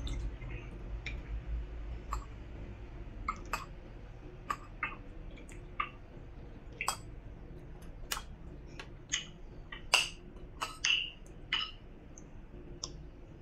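Eating at the table: an irregular scatter of short, sharp clicks and smacks from spoon and fork working a ceramic bowl and from chewing, the loudest about ten seconds in.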